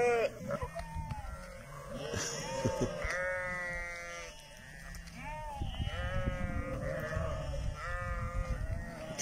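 A flock of sheep bleating, with many wavering calls overlapping and coming every second or two.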